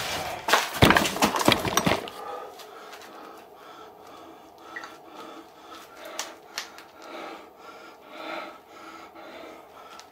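Cloth rubbing against the camera microphone: loud, scratchy rustling for about two seconds, then quieter rustling and small movements.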